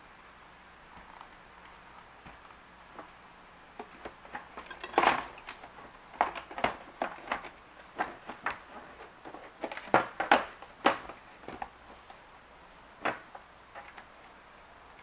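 Hard plastic parts of an Infinuvo Hovo 710 robot vacuum clicking and knocking irregularly as its shell and bumper are handled and fitted back together. The loudest knocks come about five seconds in and again around ten to eleven seconds.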